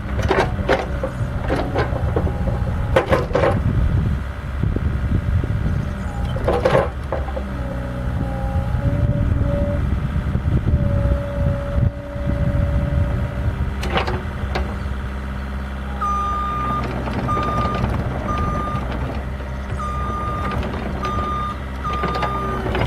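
Bobcat 435 compact excavator's Kubota V2003 four-cylinder turbo diesel running under load as the boom, stick and bucket work, with a hydraulic whine in the middle and several metal clanks from the bucket and linkage. About two-thirds of the way through, its travel alarm starts beeping, about one beep a second, as the machine moves on its tracks.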